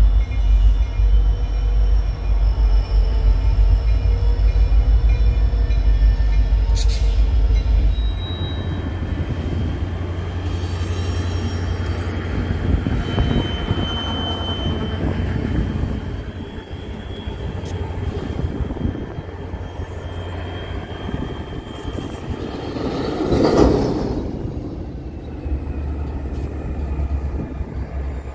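EMD two-stroke diesel freight locomotives running past with a heavy low engine rumble; about a third of the way in the sound changes to a lighter locomotive consist moving through a yard, with a thin high wheel squeal in the middle.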